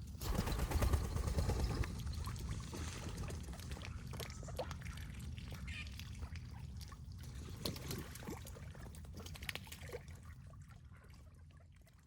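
Water splashing and trickling, with an occasional faint duck call, fading out near the end.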